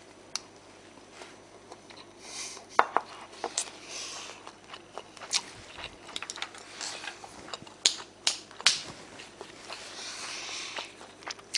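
Close eating sounds: chewing a mouthful of rice and beef, with several sharp clicks of chopsticks against a ceramic rice bowl.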